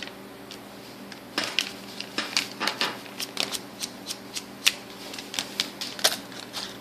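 Irregular small clicks and taps of a screwdriver and small metal parts being handled while a Shimano Chronarch 101A baitcasting reel is taken apart. The clicks begin about a second and a half in, come in quick clusters and stop shortly before the end.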